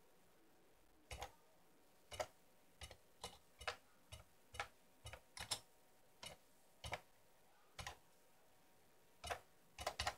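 Keystrokes on a retro home computer's keyboard: a program being typed in as sharp separate clicks at an uneven pace, some in quick pairs.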